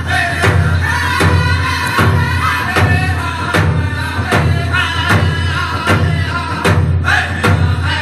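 Background music: a song with singing over a steady, evenly spaced beat.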